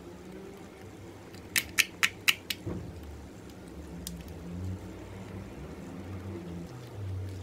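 White slime being folded and squeezed by hand, giving a quick run of five sharp clicking pops about one and a half seconds in and one more a little later, over soft squishing.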